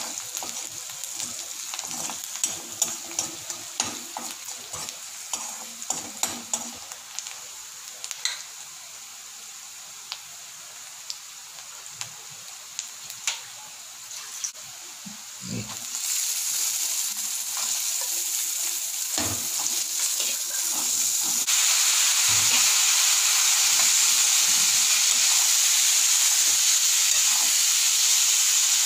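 Chopped onions, green chillies and curry leaves sizzling in hot oil in a pan, with a spatula scraping and clicking against the pan during the first half. About halfway through the sizzle turns louder and steadier, and louder again a few seconds later, as chickpeas are stir-fried in the pan.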